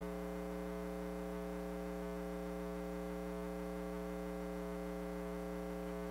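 Steady electrical mains hum with a buzz of overtones, unchanging in pitch and level.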